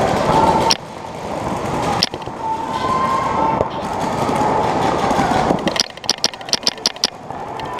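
Paintball marker firing a quick string of about seven shots, roughly five a second, a little after halfway through. Before that there are several seconds of steady noise with a few single sharp pops.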